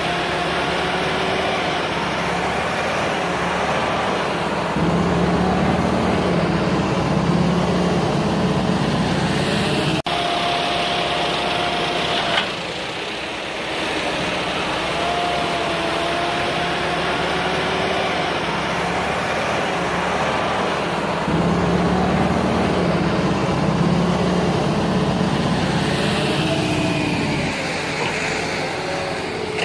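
Steady engine-like running noise, a low hum with wavering whine tones over it. It shifts abruptly a few times, with a brief dip about ten seconds in.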